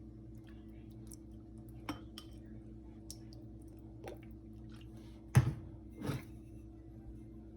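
Kitchenware being handled: a few light clicks and clinks, then a sharp knock about five seconds in and a softer one just after, over a steady low hum.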